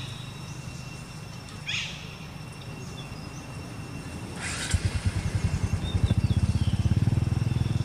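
A motorcycle engine running close by, a low, fast pulsing that gets much louder about halfway through. Two short high chirps come before it.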